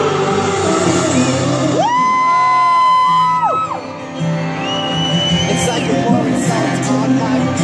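Live song: a woman sings over a steady instrumental backing. About two seconds in she slides up to a very high note and holds it for about a second and a half, then sustains an even higher, thinner note a little later.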